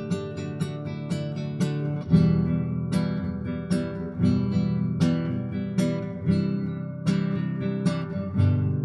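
Acoustic guitar strumming chords in a steady rhythm, an instrumental break between sung lines of the song; the chord changes about two seconds in.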